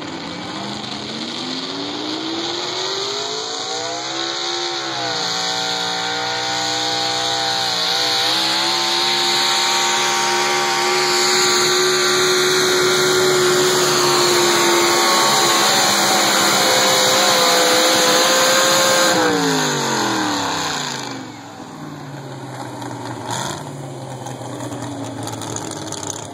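Chevrolet pulling truck's engine at full throttle on a pull. The revs climb, dip twice as it goes up through the gears, then hold high and steady for about ten seconds. About twenty seconds in the engine is let off, and the revs fall away to a lower, quieter run.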